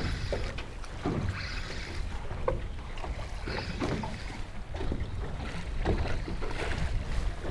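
Strong wind buffeting the microphone in a low rumble, with irregular slaps of wind chop against a small boat's hull.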